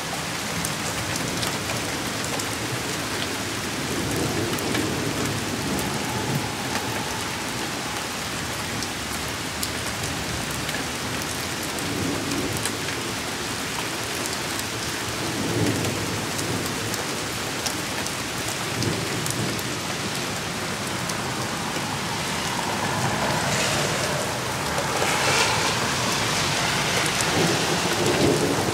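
Thunderstorm: steady heavy rain falling, with thunder rumbling several times and a louder rumble over the last few seconds.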